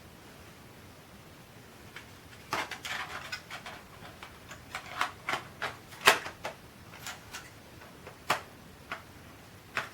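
Plastic and metal clicks and knocks as a 2.5-inch SSD is handled and pushed into a laptop's drive bay: a short rattling cluster about two and a half seconds in, then about nine separate sharp clicks, the loudest around six seconds in.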